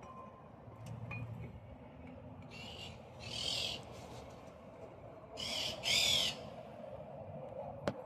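A power wrench runs in four short bursts, two pairs each a second or less long, its whine rising and falling in each burst. It is driving bolts in during reassembly of the wheel hub. A single sharp click follows near the end.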